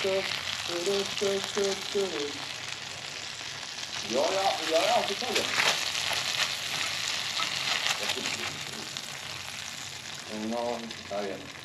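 Meat sizzling and crackling in a frying pan: a steady hiss with fine pops. A voice hums or murmurs briefly at the start, around four seconds in, and again near the end.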